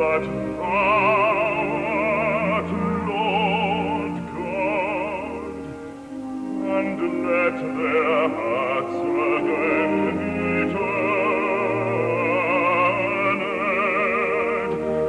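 Operatic bass-baritone voice singing with instrumental accompaniment, holding long notes with a wide vibrato and a brief lull about halfway through.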